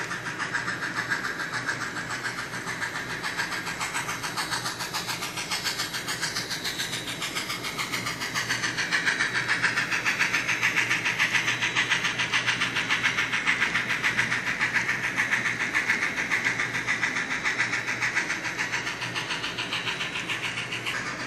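Sound decoder in a model 2-6-6-0 steam locomotive playing a quick, even beat of steam exhaust chuffs through its small speaker as the model runs, louder for a stretch in the middle as it passes close, over a steady low hum.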